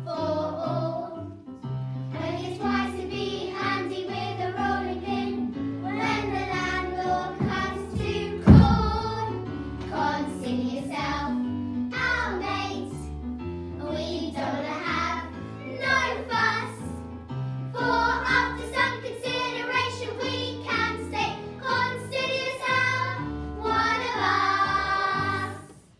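A group of young girls singing a song together over an instrumental accompaniment. There is a single loud thump about a third of the way through, and the singing ends just before the close.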